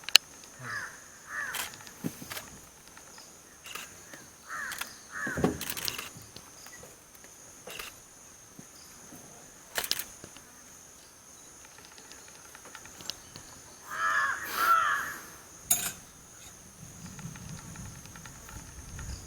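Short animal calls in scattered groups: a few near the start, more about five seconds in and again about fourteen seconds in. A steady high insect drone runs underneath, with a few sharp clicks.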